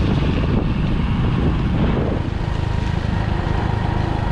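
Motorcycle engine running while riding. About two seconds in, the sound eases slightly and settles into a steadier, even hum.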